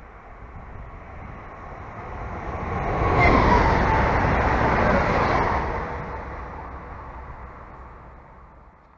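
Stadler FLIRT electric multiple unit passing at speed. Wheel rumble and hiss build as it approaches and are loudest for about two seconds from around three seconds in, with a whine falling in pitch as it goes by. The sound then fades away near the end.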